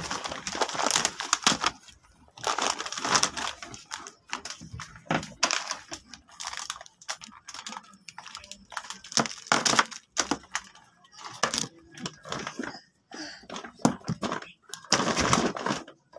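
Plastic snack bags and candy wrappers crinkling and rustling in irregular bursts as they are handled and set out.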